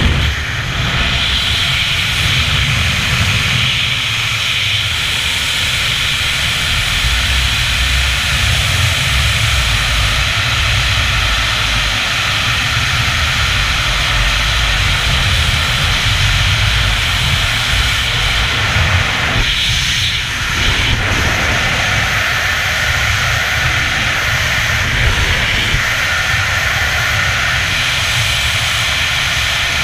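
Freefall wind rushing over a helmet camera's microphone: a loud, steady roar that shifts briefly about twenty seconds in.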